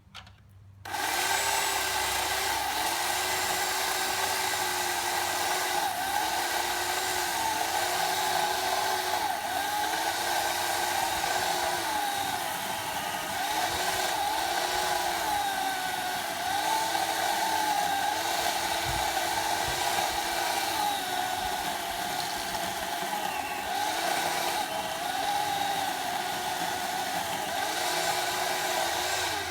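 Chainsaw running and cutting into a log. It starts about a second in, and its pitch dips and rises again and again as the chain bites into the wood and frees up.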